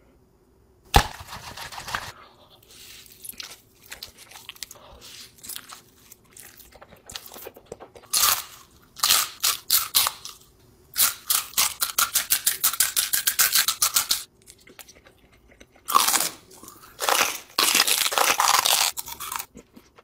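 Takis rolled tortilla chips being bitten and chewed: crisp crunching in rapid runs, densest in the middle and again near the end.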